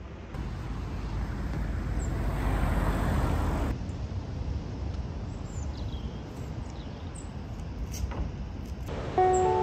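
Outdoor ambience: a low rumbling hiss that swells for a couple of seconds and then drops off abruptly, a few faint bird chirps, and music coming in right at the end.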